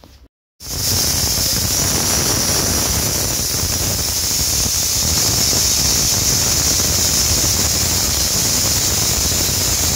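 Aluminium pressure cooker on a gas stove letting out its whistle: a loud, steady, high-pitched steam hiss that starts abruptly about half a second in, the sign that the cooker has come up to pressure.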